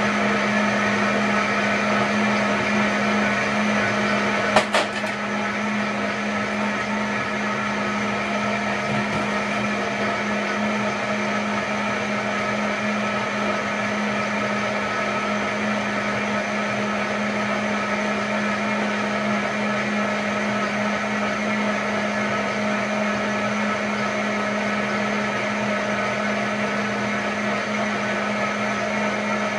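High-speed countertop blender running steadily on its hot setting, liquefying beetroot and carrot into juice, with a steady hum. A single sharp knock about four and a half seconds in.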